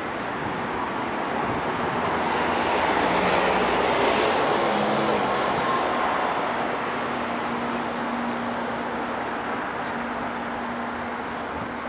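Road traffic: a passing vehicle's noise swells to a peak about four seconds in and then fades, and a steady low engine hum comes in from about six seconds in.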